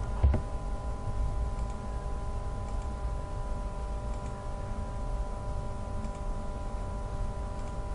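Steady background hum of several fixed tones with a low rumble underneath, and a few faint clicks of a computer mouse.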